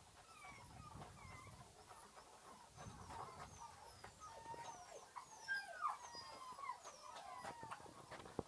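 A litter of puppies eating dry kibble from a shared metal bowl: scattered clicks and crunching, with short high gliding squeaks throughout, loudest a little past halfway.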